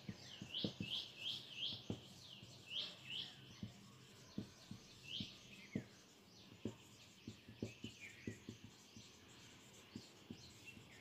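Felt-tip marker squeaking on chart paper as words are written, faint quick squeaks in short groups, with soft ticks of the tip against the paper.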